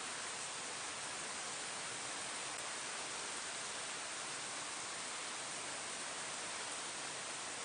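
Steady rain falling on foliage: a continuous, even hiss with no distinct drops or pauses.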